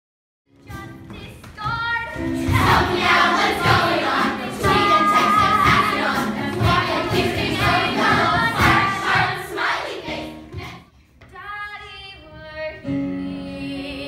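Young cast singing a musical-theatre number together with musical accompaniment. After a brief dip around eleven seconds, it gives way to a single voice singing over held chords.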